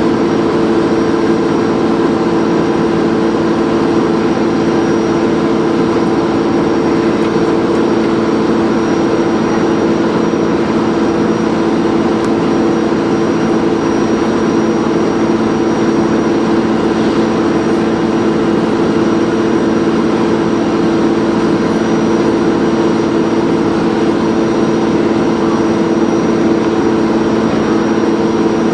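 Dennis Trident 2 double-decker bus engine running at a constant speed under way, with a thin high turbo whistle held steady over the engine note.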